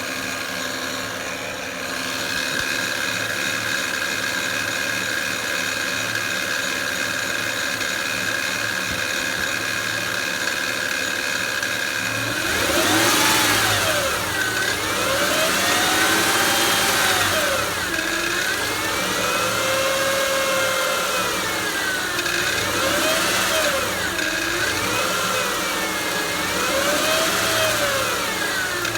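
2007 Honda Pilot's 3.5-litre V6 idling with a steady hum, then revved up and let back down several times from a little under halfway in, the pitch rising and falling with each rev. The owner is showing a humming noise that has newly started at 282,000 miles.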